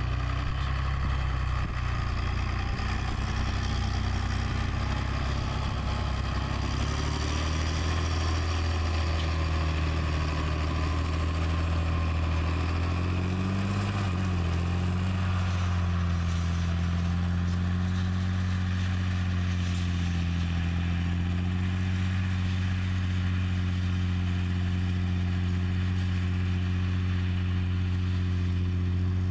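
Large John Deere tractor's diesel engine running steadily under load as it pulls an AerWay tillage tool through the field, with a hiss of ground and wind noise. Its pitch briefly rises and falls about halfway through, then settles.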